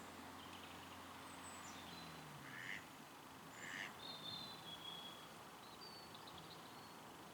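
Faint outdoor hush with two short, soft calls from grazing Canada geese, about two and a half and nearly four seconds in, followed by thin high whistles from small birds.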